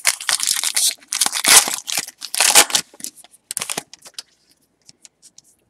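Wrapper of a baseball card pack being torn open and crinkled, a dense crackling that thins out after about three seconds and stops about four seconds in.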